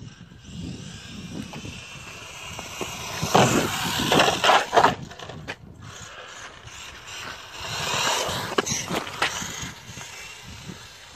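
Traxxas Slash 4x4 electric RC truck driving fast on wet asphalt. The motor whine and tyre hiss swell twice as it passes close, with a few sharp knocks during the first pass.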